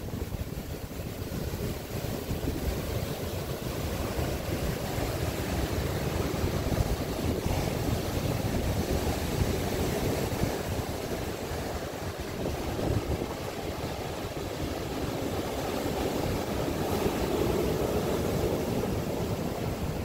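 Ocean surf breaking and its foamy wash running up a sand beach: a steady rushing that swells and eases a few times. Underneath is a low rumble of wind on the microphone.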